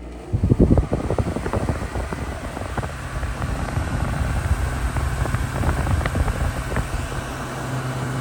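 Frigidaire window air conditioner's fan starting up and running, with a steady hum under the rush of blown air and a burst of uneven noise about half a second in. It sounds like the compressor has not kicked on, so the unit is blowing air that is not cold.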